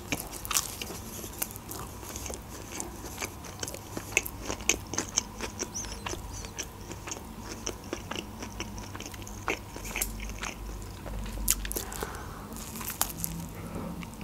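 Biting and chewing a McDonald's McChicken burger: many small crunches and mouth clicks.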